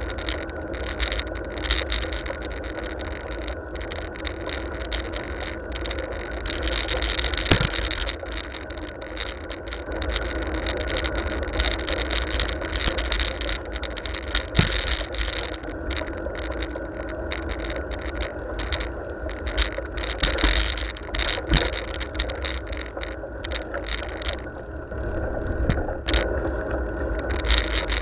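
Ride noise from a camera mounted on a moving bicycle: a steady low rumble of wind on the microphone, with rattles and a few sharper knocks as the bike rolls over the uneven road surface.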